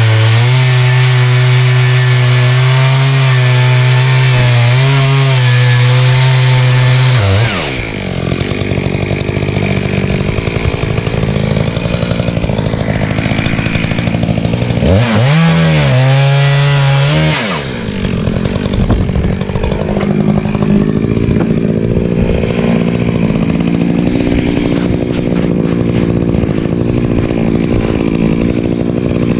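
Echo CS-590 Timberwolf two-stroke chainsaw with a ripping chain, milling a cedar log lengthwise. It runs at a high steady pitch, then the pitch drops as the chain bogs down under load in the cut. About halfway it revs up briefly and then settles back to the lower loaded pitch.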